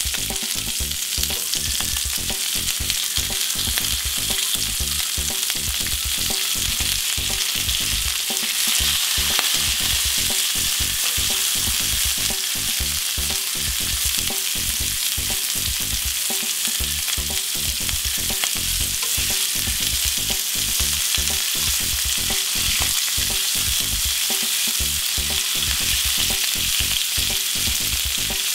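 Bacon, red onion rings and pineapple slices frying in a hot stovetop grill pan, a steady sizzle.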